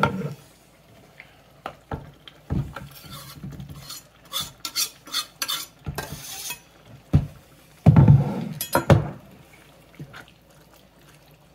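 Chef's knife knocking and scraping on a wooden cutting board as chopped dried chili is pushed off it into a stainless steel pot, a run of sharp clicks and taps. Then a wooden spoon stirs thick goulash in the pot, the loudest scraping about eight seconds in.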